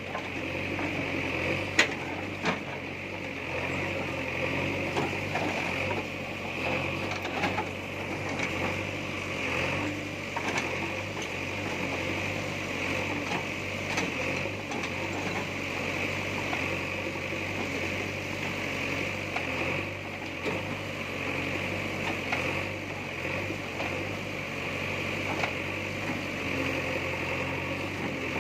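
Backhoe loader's diesel engine running steadily, with a steady high whine over it and a few sharp knocks, the loudest about two seconds in.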